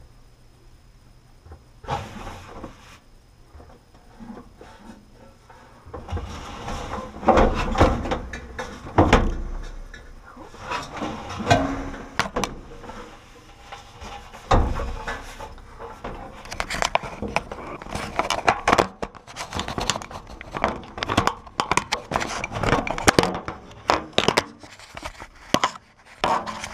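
Irregular clattering, knocks and rustling of hands and tools working inside an opened dryer's sheet-metal cabinet. It starts about two seconds in and grows busier from about six seconds.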